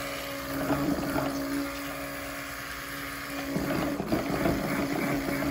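Stick blender running in a pitcher of cold-process soap batter: a steady motor hum, with louder churning and splashing about half a second in and again from three and a half seconds on as it is worked through the batter. It is emulsifying the oils and lye water.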